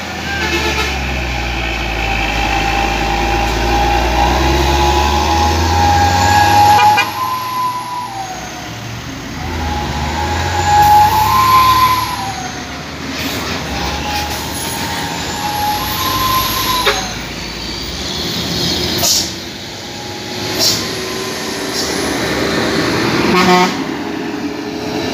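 Heavy diesel trucks passing close on a climb: a deep engine rumble for the first several seconds, then engines running with a whining tone that rises and falls several times and a slowly rising pitch near the end.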